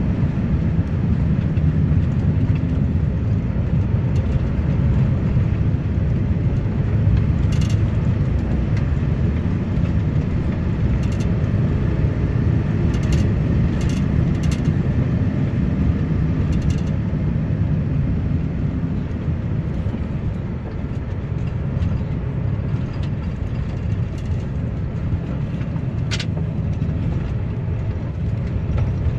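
Lorry on the move: a steady low rumble of diesel engine and tyre noise, with a few brief sharp clicks or knocks scattered at irregular moments.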